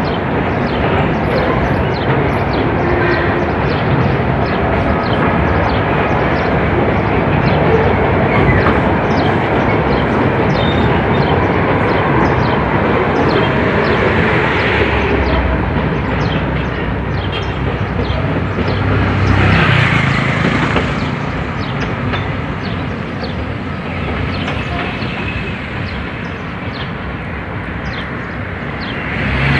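Freight train of loaded open gondola wagons rolling along the track, a steady rumble of wheels on rails with many rapid clicks.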